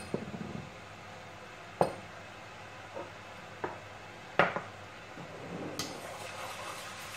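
Kitchenware handled on a hard countertop: about five separate sharp knocks and clinks of dishes and a glass bottle, the loudest about four and a half seconds in.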